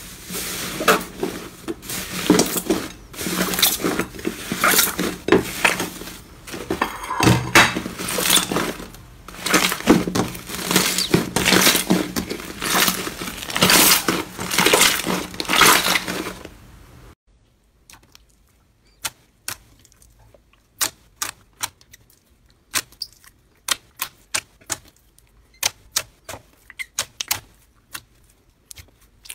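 Hands kneading and squishing a thick blue slime studded with small white cubes: a dense, continuous run of crackling pops and clicks. About 17 seconds in it changes to a sparser string of sharp clicks and pops as clear glitter slime is pressed.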